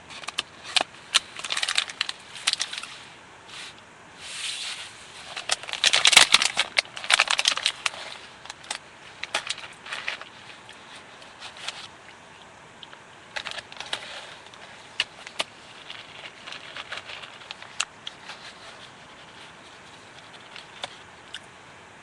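Footsteps crunching and scraping on a gravel and rock mountain trail, irregular, with clothing and gear rustling and clicking; the loudest burst of rustling comes about six seconds in.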